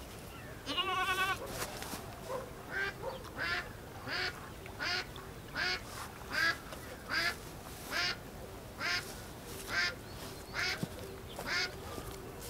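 Animal calls: one long, wavering call about a second in, then a short call repeated about every three-quarters of a second.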